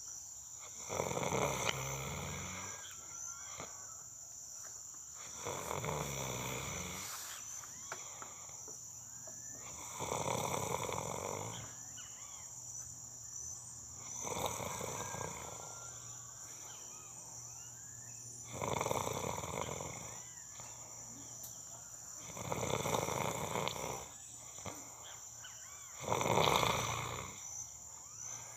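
A person snoring, seven snores about four seconds apart, some with a low rattle, over crickets chirring steadily.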